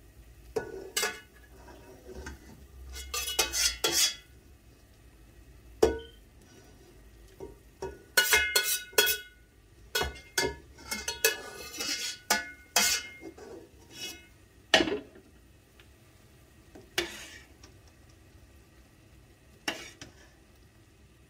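Metal spoon clinking and scraping against a bowl and the rim of a stainless steel stockpot as a mixture is scraped out into the soup, in quick clusters, then a few single knocks against the pot while stirring near the end.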